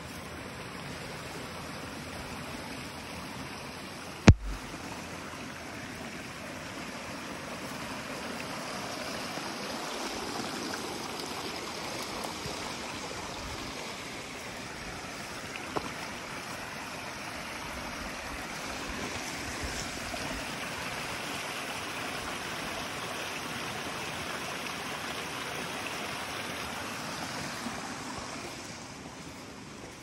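A small forest stream running: a steady rush of water that grows louder through the middle and eases near the end. A single sharp click about four seconds in, and a fainter one about halfway through.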